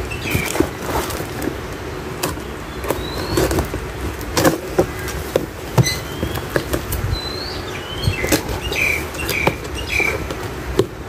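Cardboard parcel being handled and opened: irregular scrapes, knocks and rustling of the box and its flaps, over a steady low background rumble with a few short bird chirps.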